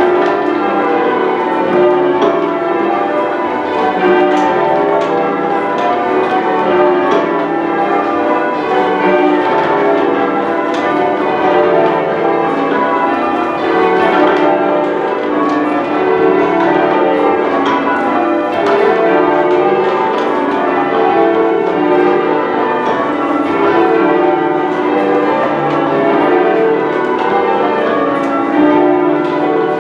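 A ring of ten church bells being rung in change ringing: a continuous, even succession of strikes, each bell's note ringing on over the next.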